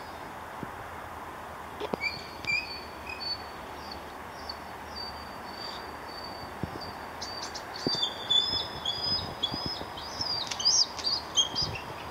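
Bald eagles calling: a few short high piping notes about two seconds in, then a rapid series of high, chittering whistles from about seven seconds on, loudest near the end, over a steady hiss of outdoor background noise.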